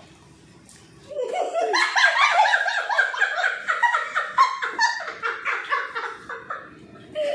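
Women laughing hard in quick, high-pitched bursts that start about a second in.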